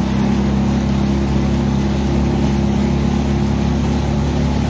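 Boat outboard motor running steadily at cruising speed, its engine note constant over a steady hiss of wind and water.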